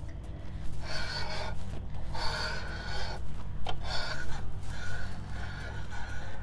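Hand-turned Porta-Tool counterbore cutter scraping metal from the liner counterbore of a Cummins ISX 15 block, a thousandth of an inch per cut, to reseat a dropped cylinder liner. It makes a rasping scrape in four strokes about a second apart, over a steady low hum.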